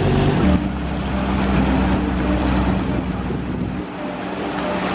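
A supercar's engine running at low revs as the car crawls along: a steady low drone. The tone changes about half a second in and eases near the end.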